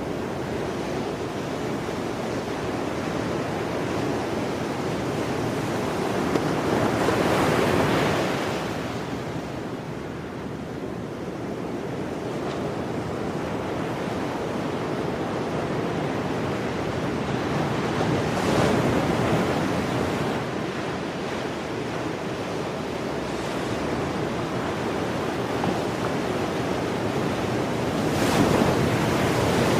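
Ocean surf breaking below in a continuous wash of foam. It swells louder three times, about every ten seconds, as each wave breaks.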